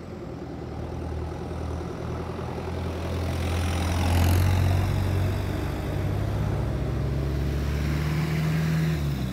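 Farm tractor's engine running as it drives past close by on a dirt road, loudest about four seconds in, with a car passing close near the end.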